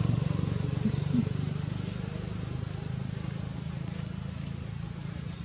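A motor vehicle's engine running with a low, rapidly pulsing hum that grows gradually fainter.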